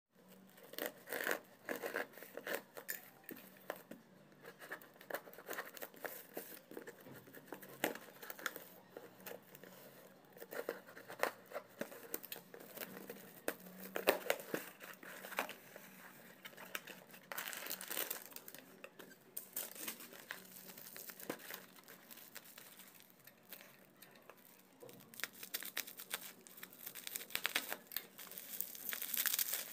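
Plastic stretch wrap and packing tape being torn and pulled off a cardboard parcel by hand, with irregular, stop-start crinkling and ripping. Near the end this gives way to bubble wrap rustling as the open box is unpacked.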